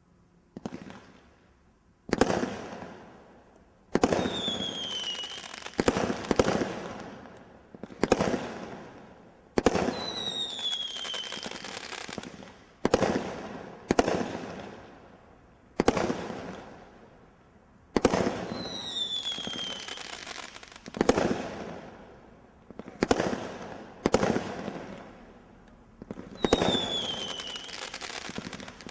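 Multi-shot firework barrage cake firing: sharp bangs about every two seconds, each trailing off over a second or two. A falling whistle rides on four of the shots.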